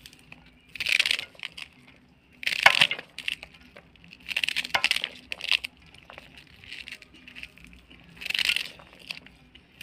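Small knife cutting crisp radish seed pods against the thumb, the short pieces dropping into a metal bowl, in several short bursts a second or few apart.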